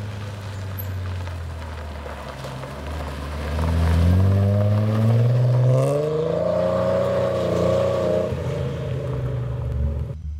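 A car pulls away and accelerates, its engine note rising steadily in pitch and growing loudest about four seconds in, then holding before dropping lower about eight seconds in.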